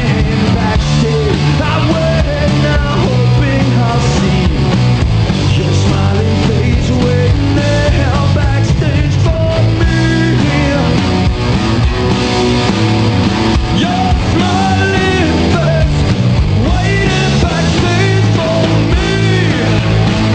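Loud punk rock band playing live: a singer on a microphone over electric guitar, bass guitar and drums.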